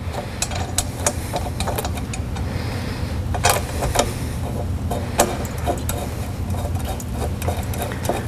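Irregular small metallic clicks and taps of header bolts and washers being handled and threaded finger tight into a steel exhaust header flange, with a few louder clinks near the middle, over a steady low hum.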